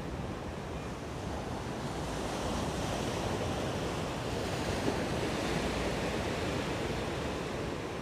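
Ocean surf breaking and washing in against a concrete seawall, a steady rush of water that builds about two seconds in and eases off near the end.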